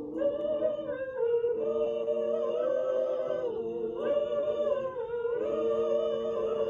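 Small choir singing a slow hymn a cappella, holding long notes together that move to a new pitch every second or so.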